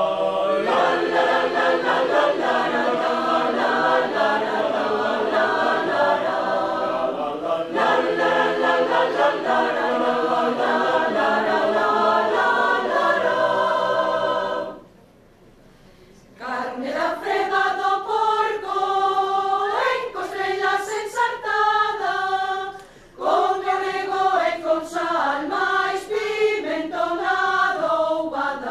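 A mixed choir of women's and men's voices singing in parts. The sound drops out for a moment about halfway, then the singing resumes with clearer separate vocal lines, broken by a couple of short pauses.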